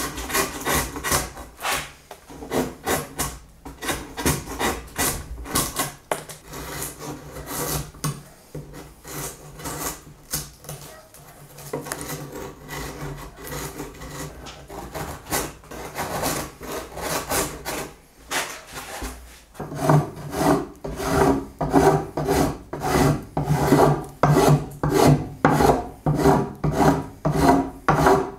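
Rhythmic back-and-forth rubbing strokes of a hand tool or abrasive on wood. They are uneven at first, then become a steady, louder rhythm of about two strokes a second about two-thirds of the way through.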